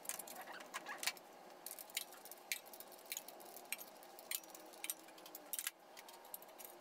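Faint, irregular light metallic clicks and clinks of head bolts and their washers being handled and set into the bolt holes of a BMW 325i cylinder head.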